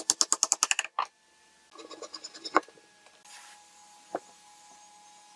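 A wooden mallet tapping a steel chisel into pine: a rapid run of sharp strikes, about ten a second, at the start, then a shorter run of taps about two seconds in ending in a louder blow. A single sharp knock follows a little after four seconds.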